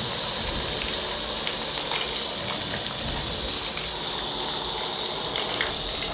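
Fish frying in hot oil: a steady sizzle with small crackles and pops now and then.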